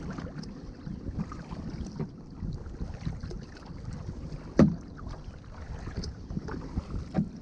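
Kayak paddle strokes dipping in and out of the water, with wind rumbling on the camera microphone. A sharp knock a little past halfway, and a smaller one near the end.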